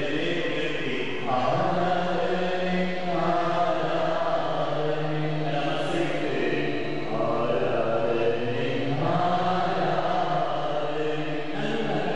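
A priest's voice chanting a prayer into a microphone in long drawn-out phrases.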